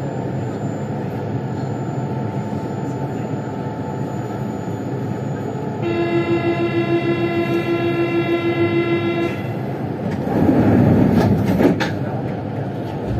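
Siemens VAL 208 metro train standing in a tunnel with a steady hum of equipment noise. About six seconds in, a pulsing buzzer-like tone sounds for about three and a half seconds. Near the end there is a louder rush of noise with a few sharp clicks.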